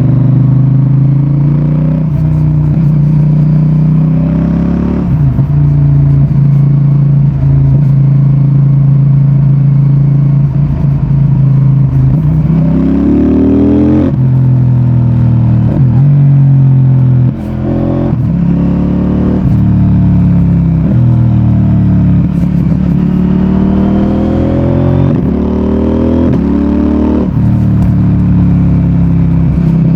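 CFMOTO 800NK Advanced motorcycle's 800 cc parallel-twin engine and exhaust under way. It cruises steadily for several seconds, then revs up repeatedly, the pitch dropping sharply at each quickshifter-assisted gear change.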